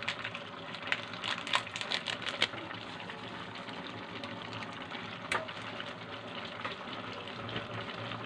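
A pot of pakbet vegetables simmering on the stove with a steady watery hiss. A run of light clicks and crackles comes in the first two and a half seconds while seasoning mix is sprinkled in, and another click comes a little past halfway.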